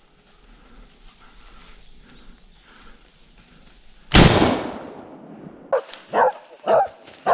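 A single loud gunshot about four seconds in, its echo rolling away over about a second. Then a hunting dog starts barking, four sharp barks about two a second near the end.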